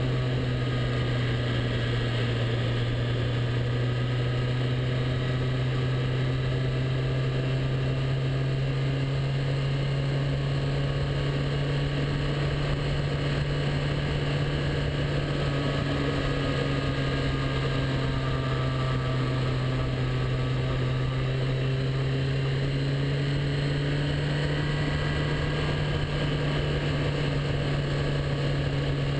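Motorcycle engine running steadily at cruising speed on the open road, its note drifting slightly up and down, over a constant rush of wind and road noise.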